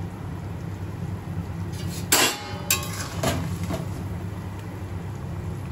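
A metal spatula stirring fish curry in a metal kadai, scraping and clinking against the pan. There are a few sharp knocks between about two and four seconds in, the loudest just after two, over a steady low hum.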